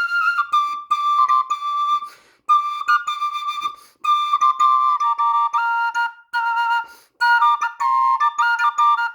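A pair of high-pitched bird flutes in A sharp played together: short melodic phrases of clear, whistling notes broken by brief breath pauses, with two notes sounding at once in places.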